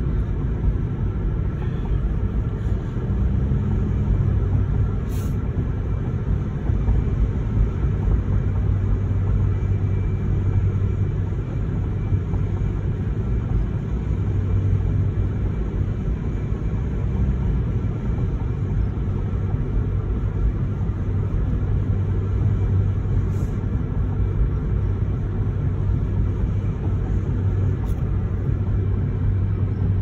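Steady low rumble of a car, heard from inside the cabin.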